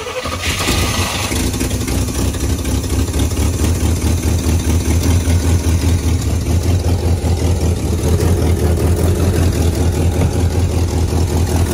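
Rollback truck's engine running just after starting, a steady low rumble with a fast even pulse. It grows a little louder over the first second, then holds steady at idle.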